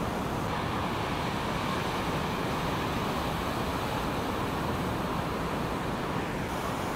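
Ocean surf breaking and washing ashore: a steady, unbroken wash of noise.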